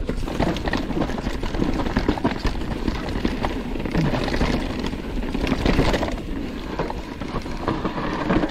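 YT Capra mountain bike descending a dirt trail: knobby tyres on dirt and the bike rattling and clattering over bumps in quick irregular knocks, with a low rumble of wind on the microphone.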